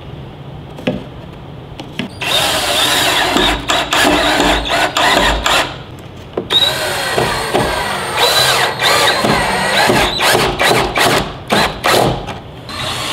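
DeWalt power drill driving pocket-hole screws into a pine cross member, its motor whining in runs that rise and fall in speed with the trigger. It starts about two seconds in, pauses briefly about six seconds in, then runs again in several short spurts.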